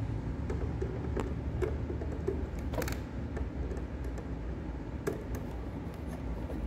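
Screwdriver turning a wire terminal screw on a mini-split indoor unit's terminal block: scattered small clicks and ticks over a steady low rumble of handling noise.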